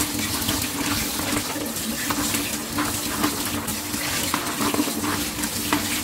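Water running from a tap and splashing as dried fish is rinsed by hand to wash out the sand, with small irregular splashes and knocks throughout.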